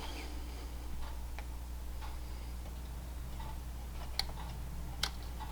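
Scattered light clicks and taps of fuel-pump parts being handled and pressed into the pump hanger, over a steady low hum.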